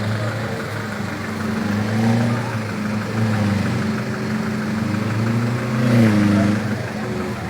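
Off-road 4x4's engine running, its pitch rising and falling as it is revved, loudest about six seconds in.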